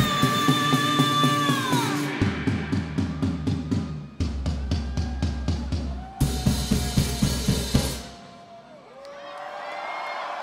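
Live band music: a held sung note, then a fast run of drum hits at about five a second that stops abruptly about eight seconds in. The crowd noise then swells into cheering.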